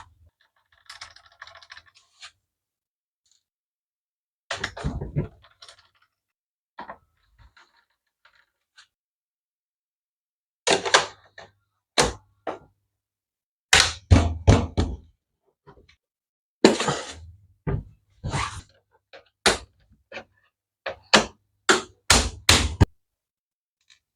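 Hard knocks and thunks of a Zealot S78 Bluetooth speaker's casing and parts being handled, fitted and set down during reassembly, in irregular clusters that grow busier in the second half.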